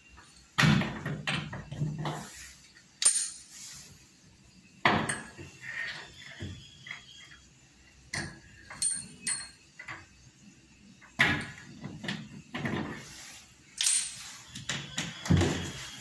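Irregular clicks, knocks and metallic clatter of hands and a tool working at the steel back panel of a front-load washing machine, taking out its transit bolts.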